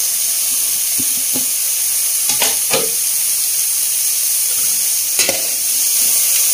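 Shredded cabbage sizzling in hot oil in a wide metal pan with a steady hiss, while a steel spatula stirs it, with a few sharp scrapes and knocks against the pan.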